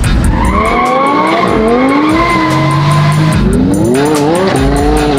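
Music with a steady beat, over which a sports car engine revs, its pitch rising twice.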